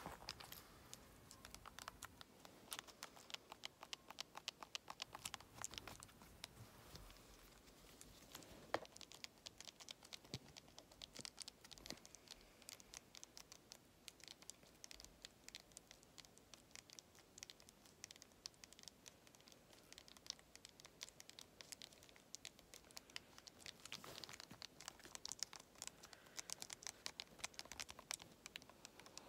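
Faint, rapid tapping and scratching close to the microphone: a dense run of small clicks, with one sharper click about nine seconds in.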